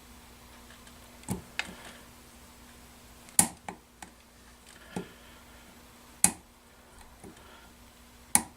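Sharp metal clicks and knocks, about nine at irregular intervals, from hands and tools working a seal ring down over the crankshaft of an outboard motor being reassembled.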